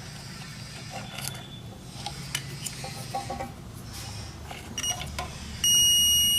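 Light clicks of test probes being placed, then about five and a half seconds in a multimeter's continuity buzzer starts a steady high beep. The beep signals a short between the two test points on the amplifier board's +15 V track, even with the suspect Zener diode removed.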